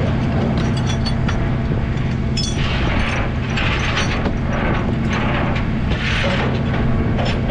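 Tow truck engine running steadily with a low hum, overlaid with scattered metallic clicks and several short rushing noises from the recovery gear.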